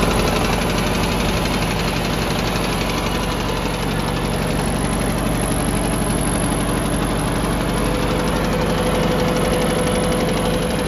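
Ford 860 tractor's four-cylinder gasoline engine running steadily.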